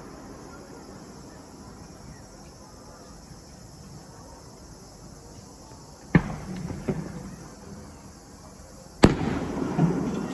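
Aerial fireworks shells bursting: two sharp booms about three seconds apart, each trailing off in a rumbling echo. A smaller pop follows under a second after the first.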